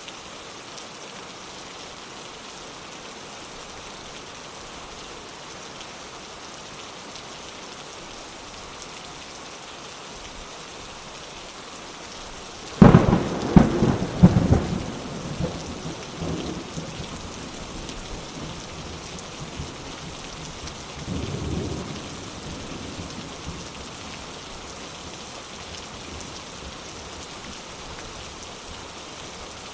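Steady rain falling, with a sudden loud thunderclap near the middle that rolls and rumbles away over several seconds, followed a little later by a softer, shorter roll of thunder.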